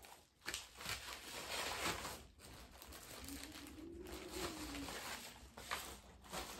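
Rustling and crinkling of a padded mailer and the plastic bags inside it as they are opened and handled, coming and going with short pauses.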